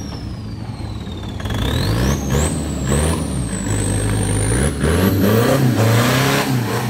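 An off-road 4x4's engine revs up and down repeatedly under hard work, with a high whine that falls and then climbs back in steps as the revs build. Scattered knocks and bangs run through it.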